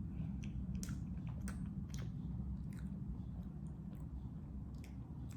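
Close-miked mouth sounds of someone chewing a soft dessert of sauce, cream and mochi: scattered wet smacks and clicks over a steady low hum.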